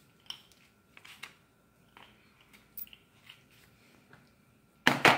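Scattered light clicks and rustles of a cat and a hand moving about on a cluttered tabletop, ending with a loud, short rustling knock near the end.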